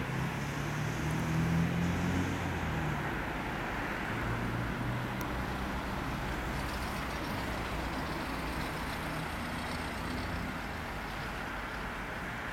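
Road traffic: steady noise of vehicles passing on a road, with one vehicle's engine hum loudest in the first few seconds and fainter passes later on.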